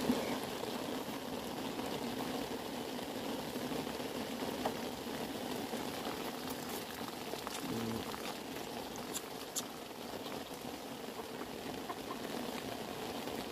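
A newborn lamb sucking milk from a bottle's rubber teat: steady wet gurgling and slurping, with a few small clicks.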